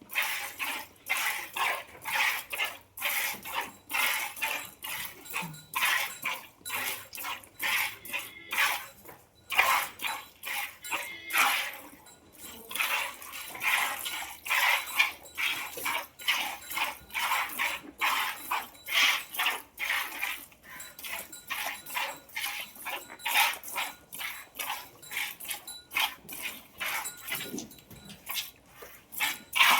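A cow being milked by hand: rhythmic hissing squirts of milk into a pail, about two a second.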